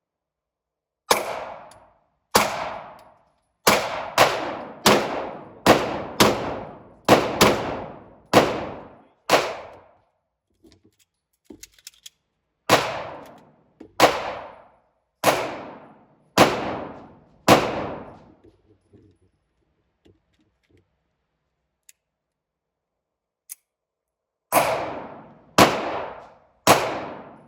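Gunshots fired one at a time at a shooting range, each trailing off in a short ringing echo. About eleven come at an uneven pace, then after a pause five more about a second apart, and after a longer pause another string begins near the end.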